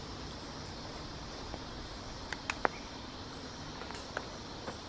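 Steady chorus of insects over a faint hiss, with a few short, sharp clicks a little past the middle.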